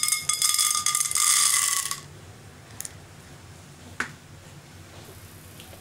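Chana dal (split Bengal gram) poured from a spoon into hot oil in a nonstick pan: the dry lentils clatter and crackle as they land for about two seconds. Then a faint, steady frying hiss, with a single click about four seconds in.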